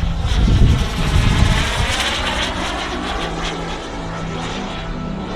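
A radio-controlled model aircraft flying past, its engine noise swelling to a peak about two seconds in with a sweeping, phasing rush, then easing off.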